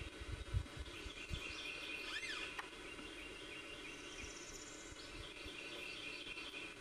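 Several songbirds singing in a floodplain swamp: repeated trilled phrases, one quick rising-and-falling whistle and a high thin trill, over a steady low background hum. A few low thumps near the start.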